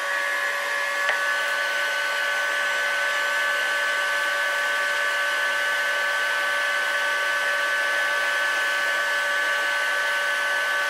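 Electric heat gun running steadily, a fan-motor whine over the rush of hot air, blowing on an aluminium engine crankcase to expand it before a bearing is pressed in.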